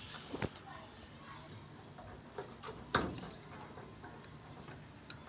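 Hands handling a brass AC manifold gauge set, giving a few light clicks and one sharper knock about three seconds in, over a faint steady low hum.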